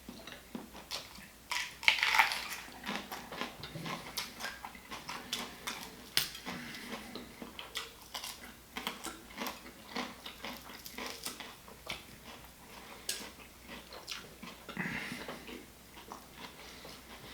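Close-miked eating: chewing and mouth smacking, with many short, irregular clicks and taps of cutlery and dishes.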